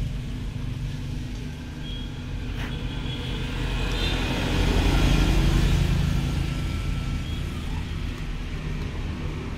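A motor vehicle's engine running, a steady low rumble that grows louder for a couple of seconds about halfway through, then eases off.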